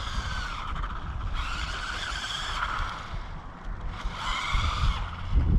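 Brushless electric motor of a 1/16-scale RC car whining as it drives on tarmac, rising and falling in pitch with the throttle in two spells, one about a second and a half in and one about four seconds in.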